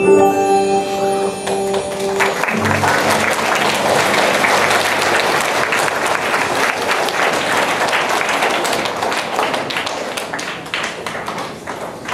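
The last held chord of a song ends about two seconds in, and an audience breaks into applause, the clapping thinning out toward the end.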